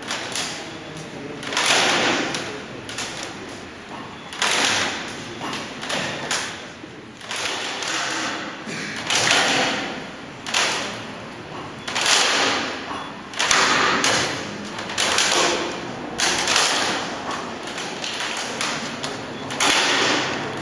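Timber shear walls and their jack-driven loading rig under racking load: sharp knocks and cracks come about every second and a half, as the wood and its joints give under a load past 30 kN.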